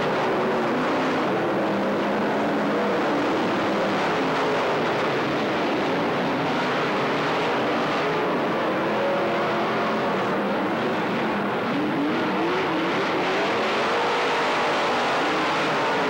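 Race car engines running at speed around an oval track, a dense steady din of overlapping engine notes whose pitch rises and falls as the cars go by.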